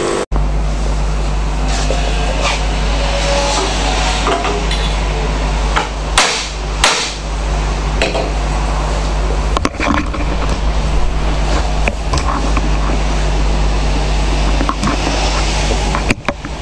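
Espresso portafilter knocked against a knock-box bar, two sharp knocks about six and seven seconds in and lighter knocks later, over a steady low hum.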